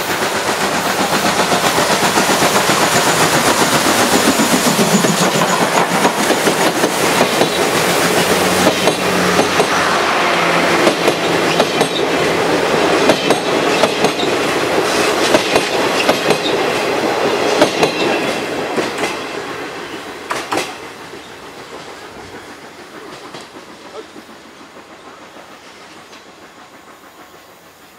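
A steam-hauled passenger train rolling past, its wheels clacking over the rail joints. The sound is loud and steady at first, then fades away in the last third as the train moves off.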